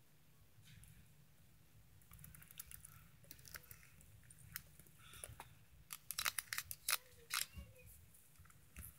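Handling noise from a handheld camera being moved close to the microphone: scattered clicks and rustles over a faint low hum, busiest about six to seven and a half seconds in.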